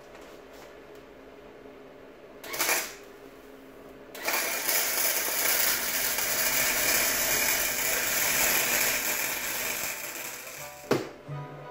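Wire-feed MIG welder arc crackling: a short burst about two and a half seconds in, then a steady weld of about six seconds. It is welding onto a stripped cap in a cylinder head to get a grip for extracting it. A sharp knock near the end.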